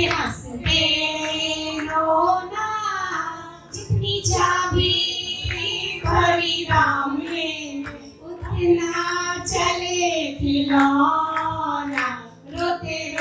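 A woman singing a song into a microphone, her voice holding and bending long notes, as her turn in an antakshari singing game.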